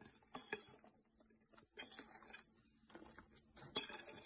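Faint scattered clinks and scrapes of a glass mixing bowl as beaten egg whites are tipped and scraped out of it into waffle batter.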